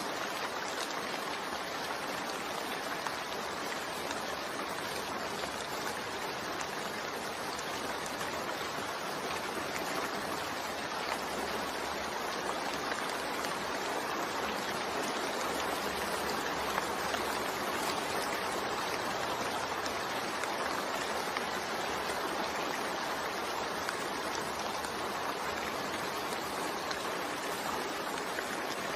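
Continuous rain blended with white noise: an even, steady hiss with no single drops or thunder standing out.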